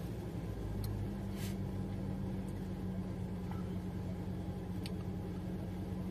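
Suzuki SX4's M16A 1.6-litre four-cylinder petrol engine idling steadily just after a cold start following an overnight stand, heard from inside the cabin. A few faint clicks sound over the idle.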